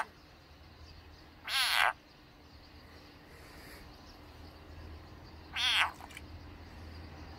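A frog calling twice, each call a quick pulsed croak of under half a second, the two about four seconds apart.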